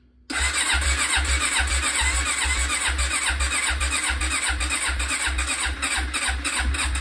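1996 Honda CB500 parallel-twin engine being turned over on its electric starter, cranking steadily without catching, with a low chug about two or three times a second.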